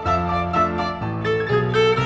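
Background music: a fiddle tune, its notes changing several times a second over a low accompaniment.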